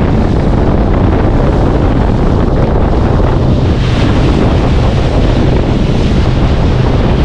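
Heavy wind buffeting the microphone on a fast-moving boat, over the steady low hum of the boat's engine and the rush of water. The engine hum grows stronger about halfway through.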